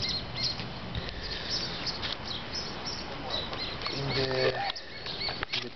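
Small birds chirping in the background throughout. About four seconds in comes one brief low pitched sound, like a distant animal call.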